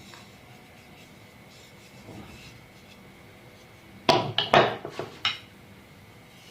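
Kitchenware clattering: a quick run of about five sharp knocks a little past the middle.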